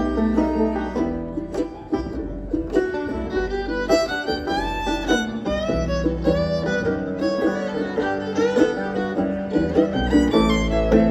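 Bluegrass band playing an instrumental break of a slow song, a fiddle taking the lead with sliding, bending lines over banjo, guitar and a steady upright bass.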